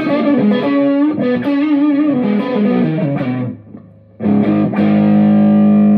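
Electric guitar through a Two-Rock Jet amp's lead channel at bedroom volume, playing a driven lead line with bent and vibrato notes. About four seconds in, after a brief gap, a long note is struck and left to ring.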